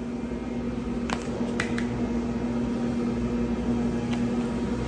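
Steady mechanical hum of a kitchen appliance, holding one tone and cutting off near the end, with a few light clicks from the spice jar being shaken over the bowl about a second in.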